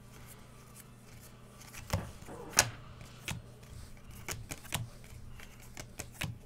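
Baseball cards being flipped one at a time off a hand-held stack: irregular light clicks and snaps of card edges, the sharpest about two and a half seconds in.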